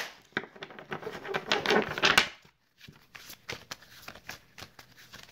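Tarot cards being shuffled by hand: a rapid run of light card clicks, louder over the first two seconds, then a brief pause and softer shuffling.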